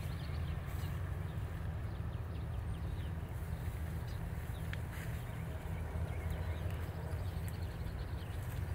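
Outdoor pasture ambience: a steady low wind rumble on the microphone, with faint short bird chirps now and then.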